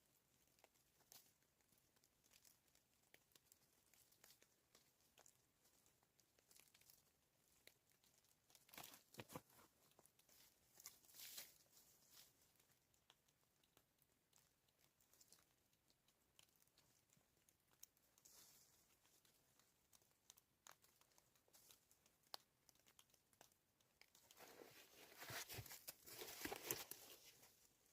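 Faint rustling and crinkling handling noises with scattered small clicks, including a longer, louder stretch of rustling near the end.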